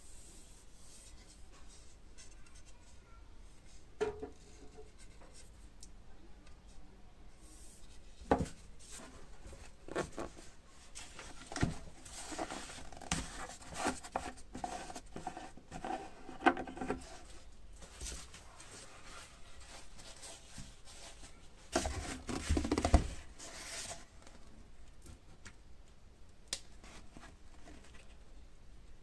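Tabletop handling noises: a few light knocks of the wooden cane shaft being set down, then paper towel rustling and crinkling at intervals, loudest about three quarters of the way through.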